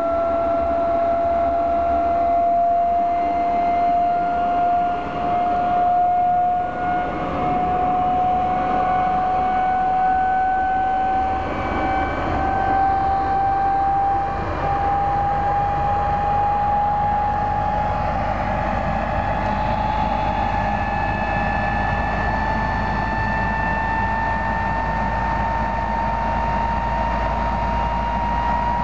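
Klimov VK-1 centrifugal-flow turbojet engine running on a ground test stand. Its whine rises slowly and evenly in pitch as the engine speeds up, over a steady rush of exhaust. A deep rumble grows stronger from about halfway through.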